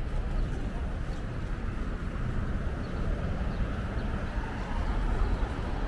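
City street ambience: a steady rumble of traffic with general street bustle.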